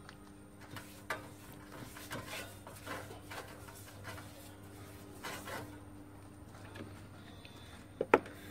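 A brush scrubbing a thin coat of acid stripper across the inside of a hot copper pan, in short rasping strokes, during the stripping stage before retinning. A single sharp knock near the end.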